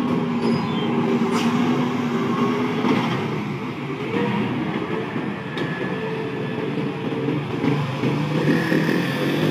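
Diesel engines of Hino container trucks running at low speed as they crawl around a sharp bend: a steady low drone whose pitch shifts, rising near the end as the next truck comes through.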